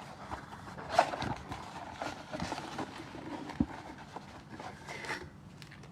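Trading card packs being opened and handled: crinkling wrapper and cards shuffled and tapped on a table, with a sharp knock about a second in and another past three and a half seconds.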